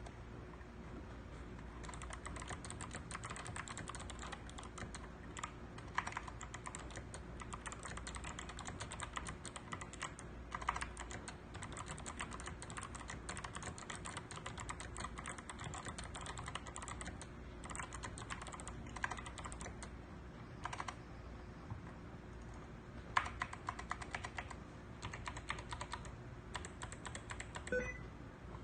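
Continuous typing on a Ganss GS87 tenkeyless mechanical keyboard with clicky Kailh Box White switches and SA-profile keycaps: a dense run of crisp key clicks, with a few louder strikes scattered through.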